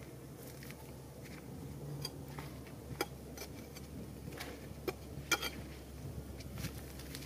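Faint footsteps on dry ground littered with dead grass stalks, with a few sharp clicks and crackles scattered through, over a low steady hum.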